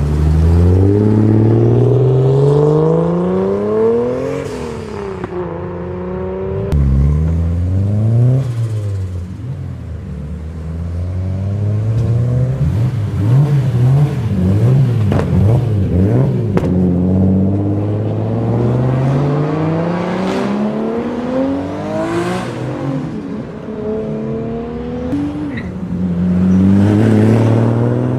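Toyota Supra MK4's straight-six engine accelerating hard, its pitch climbing and dropping again and again as the revs rise and fall through the gears, in several separate short passes.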